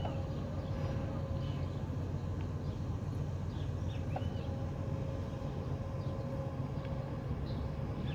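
Low, steady drone of a passing bulk carrier's engine, with a few steady hum tones above it. Scattered short bird chirps come over it.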